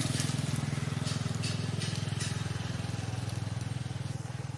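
A small engine running steadily at idle: a low, evenly pulsing hum, with a few light crackles over it.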